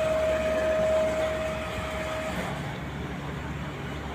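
Steady machinery hum with a single high whine that cuts off a little over halfway through, leaving the low hum running.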